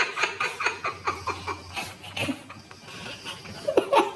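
Two men laughing in quick repeated bursts, fading down about halfway through, with a little more laughter near the end.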